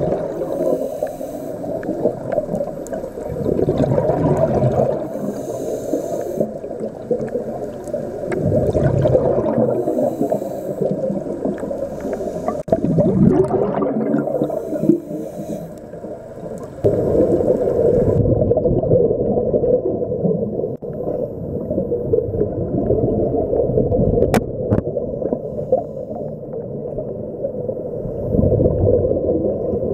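Scuba regulator breathing recorded underwater: a dull, steady rush with gurgling bubble surges from the divers' exhalations every few seconds.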